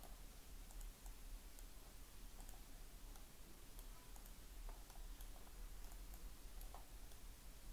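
Faint, irregular computer mouse clicks over a low steady hum.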